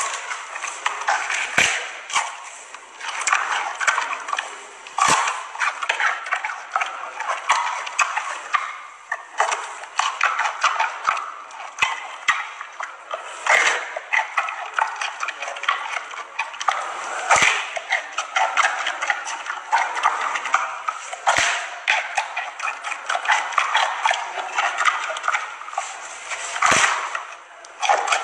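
Giant panda chewing a fresh bamboo shoot: continuous wet crunching and munching, with a sharp crack about every four seconds as the shoot snaps.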